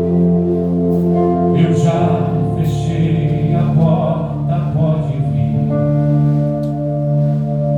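Live gospel worship band music: held keyboard chords over bass, with a few cymbal hits from the drum kit.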